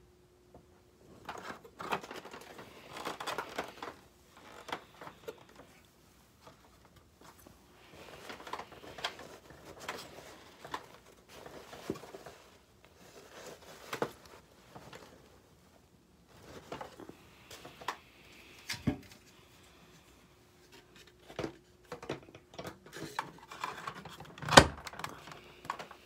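Scattered plastic clicks, knocks and rustling from handling a Hoover Commercial WindTunnel upright vacuum whose motor is not running. One sharp knock near the end is the loudest.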